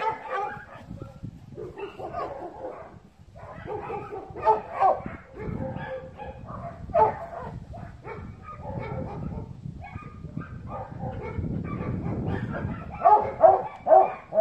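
Dog barking and yipping in short uneven bursts, with a run of quick, louder barks near the end.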